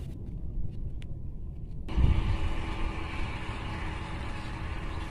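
Wind buffeting the microphone, an uneven low rumble. About two seconds in, the background changes abruptly to a steady hiss with a faint low hum.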